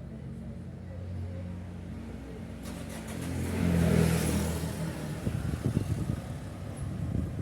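1.6 turbocharged petrol car engine running, revved once about three to four seconds in, then dropping back with an uneven pulsing.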